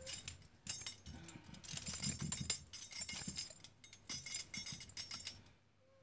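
Stainless steel clapper bird toy swung by hand, its stainless steel beads and spoon-shaped clapper rattling and clinking together in quick, irregular jangles: a rattly metal sound. It stops near the end.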